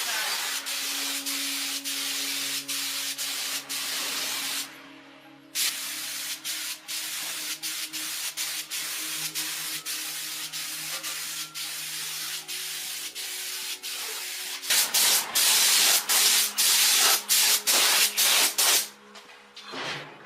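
A steady hiss of air spraying under pressure, broken by many short pauses. It stops for about a second near 5 s, runs louder in stop-start bursts from about 15 s, and cuts off near 19 s.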